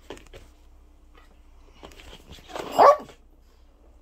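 A small white Pekingese gives one short, loud bark nearly three seconds in while play-fighting with another dog, after a couple of faint short sounds at the start.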